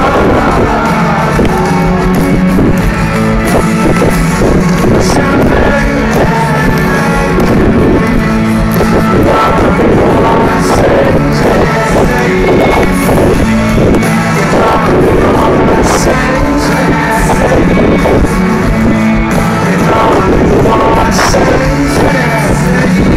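A live rock band playing loud through a stage PA, with amplified guitars and a singing lead vocal.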